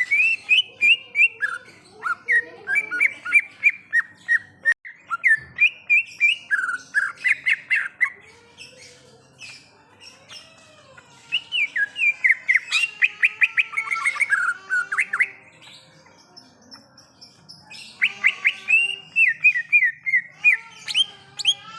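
Green leafbird (cucak ijo) singing: quick runs of chirps and whistled notes in three bursts, with short pauses between them.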